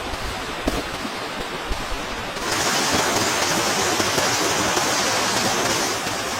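Steady rushing water noise; about two and a half seconds in it gets louder and gains a higher hiss, which eases a little near the end.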